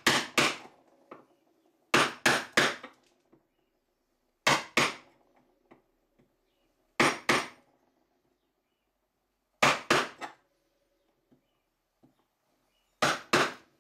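Wood chisel being struck to chop into an ash axe handle: six clusters of two or three sharp knocks, about every two and a half seconds, as chips split away.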